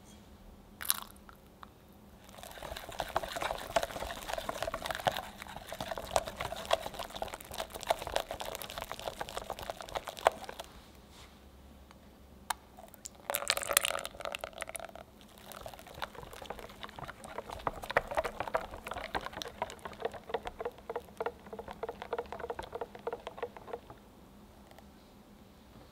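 Silicone whisk stirring egg yolk batter in a glass bowl: wet swishing with rapid fine clicks against the glass, in two long stretches with a pause between them. In that pause, about thirteen seconds in, liquid is poured briefly into the bowl.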